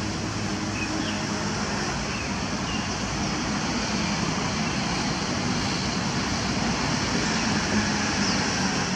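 Steady roar of road traffic noise, with a few faint short chirps from a small bird in the first three seconds.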